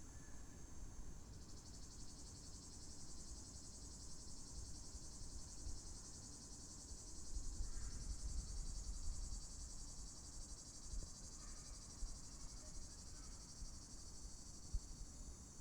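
Cicadas singing in a steady high buzz that grows a little stronger about a second in, over a low rumble, with a few faint short chirps.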